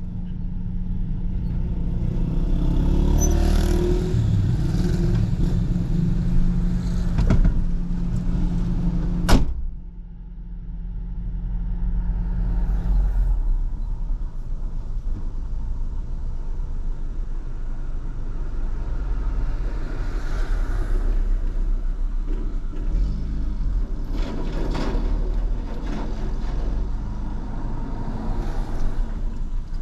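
Square-body Volkswagen Gol's carbureted CHT engine, with a mini "turbinho" exhaust, running on the road with a steady engine note. About nine seconds in there is a sharp click; the sound drops away suddenly, then builds back up and carries on, swelling a few times.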